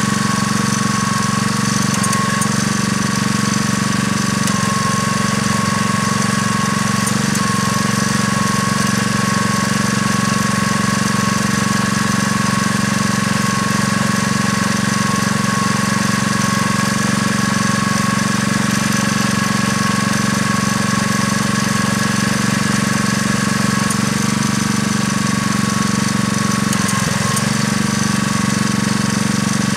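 Airless line striper's gasoline engine running steadily at constant speed, driving the paint pump while water is flushed through the hose and out of the spray gun.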